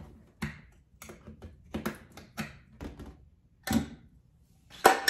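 Irregular sharp clicks and knocks on a small metal paint-can-style tin as its lid is worked open, then a loud metallic clang near the end that starts to ring with a steady tone.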